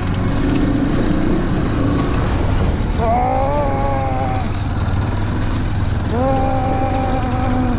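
Motorcycle engine running while riding over a rough dirt track, with wind and rattle noise. The engine note climbs and then holds, about three seconds in and again near the end.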